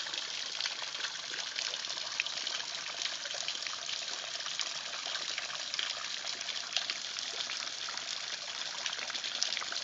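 Small waterfall dropping about 12 feet off a rock shelf, water spattering steadily in a continuous hiss with many small splashes.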